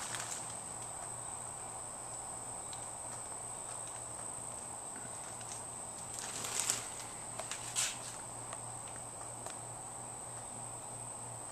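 Quiet room tone with a steady high-pitched whine and a low electrical hum, and a few brief rustling or shuffling noises about six to eight seconds in.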